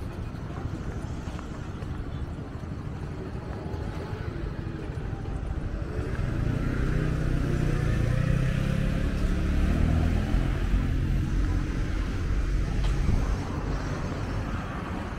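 Engine of a passing motor vehicle, over a steady low rumble of outdoor background noise. It grows louder about six seconds in, its pitch bending as it passes, and fades after about thirteen seconds.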